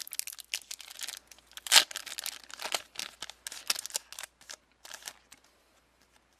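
Trading card booster pack wrapper being torn open and crinkled, a quick run of crackles and rips, the loudest rip about two seconds in, stopping a little after five seconds.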